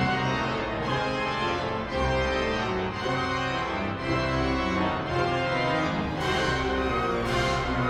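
Pipe organ playing held chords over low sustained bass notes, the harmony shifting every second or so, in a modern classical organ concerto.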